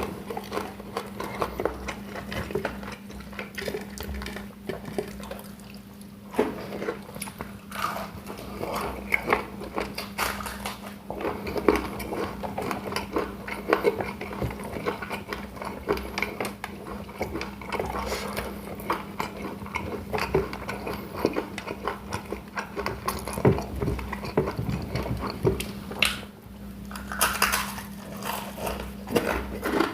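Close-up eating sounds: a mouth chewing and biting into fried chicken and rice, with cutlery clinking against a plate. A steady low hum runs underneath.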